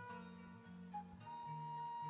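Background music: a held, gently wavering melody over low notes that change about twice a second.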